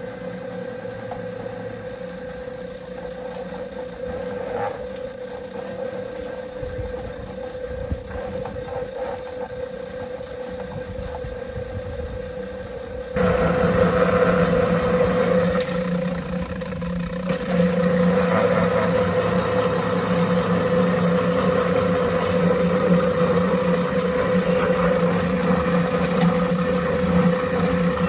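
Spinning-drum chicken plucker running with a steady motor hum. About 13 seconds in the sound gets suddenly louder and rougher as water sprays from a hose nozzle into the drum and the scalded birds tumble against the rubber plucking fingers.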